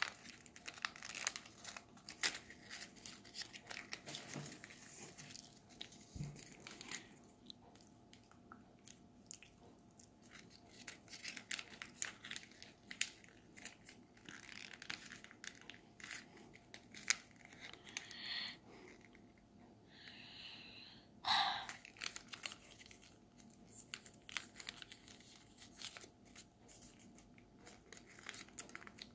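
A sheet of coloured origami paper being handled, folded and creased by hand: faint rustling and crinkling with many small crackles as the folds are pressed and adjusted.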